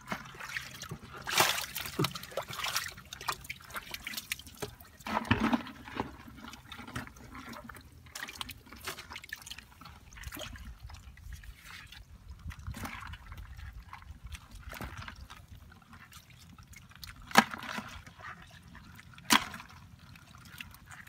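Hands splashing and sloshing in a shallow pool of muddy water while catching fish, with irregular drips and trickles and a few sharper splashes, the two loudest near the end.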